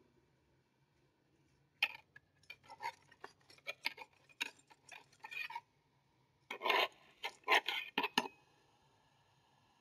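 A small hand tool scraping and digging into the soil of a potted plant in a plastic pot: two runs of short, quick scrapes and clicks, the second run the louder.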